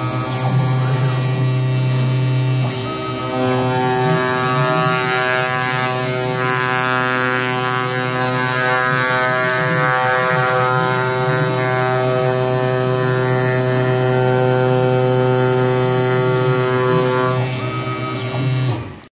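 Techno HD CNC router running a knife-cutting head along a cut: a steady buzzing hum made of many even tones, with faint shifting whines under it from the machine's motion. The sound fades out quickly near the end.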